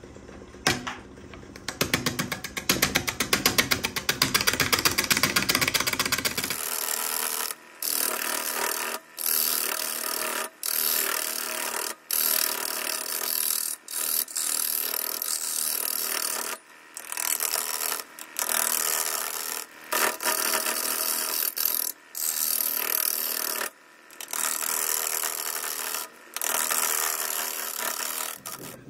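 Wood lathe turning a live-edge maple bowl, with a tool working the spinning wood. A rapid clatter runs for the first several seconds, then a steadier hissing cut comes in stretches of one to two seconds broken by brief pauses.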